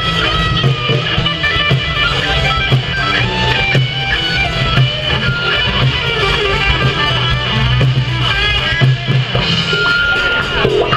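Live rock band playing an instrumental passage: electric guitar over a drum kit.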